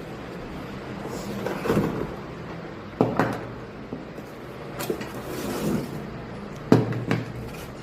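Laptop box and packaging being handled: scraping and sliding sounds with several sharp knocks, the loudest about three seconds in and near seven seconds in.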